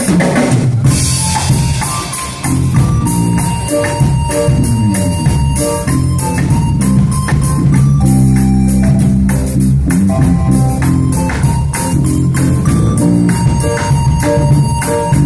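Live church band music with a steady beat: a keyboard melody over bass, drums and percussion.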